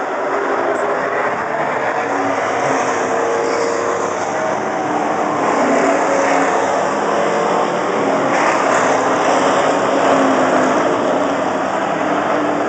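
Several late-model stock car engines running at racing speed on a short oval, their overlapping pitches wavering as the cars lap. It swells a little about six seconds in, as a pair of cars passes close, and again near ten seconds.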